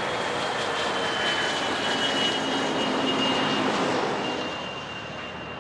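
Aircraft engine noise as a plane passes: a steady rush with a high whine that slowly falls in pitch, easing off a little after four seconds in.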